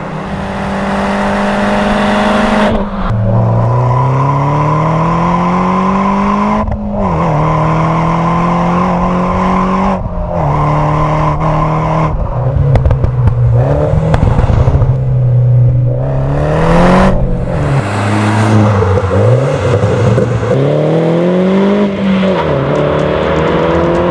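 MINI Cooper S R56's 1.6-litre turbocharged four-cylinder through a QuickSilver cat-back sport exhaust, accelerating through the gears. The pitch climbs and drops back at each gear change, several times. Around three-quarters of the way in it falls off and wavers as the throttle is lifted, then picks up again near the end.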